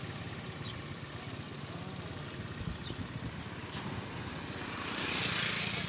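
Small vehicle engine running steadily at a low, even rumble, with a rushing swell of noise about five seconds in.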